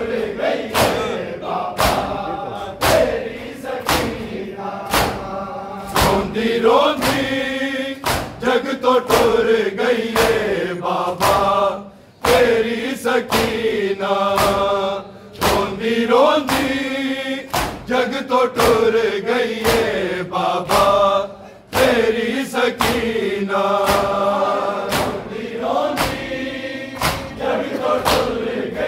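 A Shia noha lament sung in chorus, with mourners beating their chests (matam) in a steady rhythm of sharp slaps under the singing. The singing pauses briefly twice.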